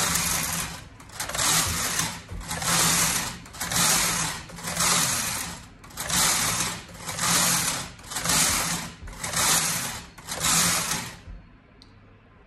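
Brother KH881 punch-card knitting machine knitting rows of slip stitch: the carriage is pushed back and forth across the needle bed about ten times, each pass a clattering rush of needles about a second long. The passes stop near the end.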